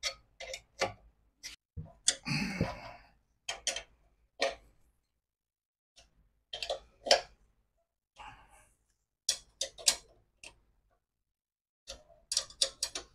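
A hand wrench clicking and tapping on metal while the bolts that hold a pressure-washer pump to its engine are tightened. The clicks are sharp and scattered, some single and some in short runs of a few, with a brief rustle about two seconds in.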